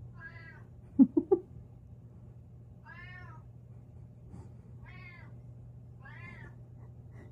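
A domestic cat meowing four times, high little meows that each rise and fall, spaced a second or two apart, asking for the closed door to be opened. About a second in comes a quick run of three short, louder, lower sounds.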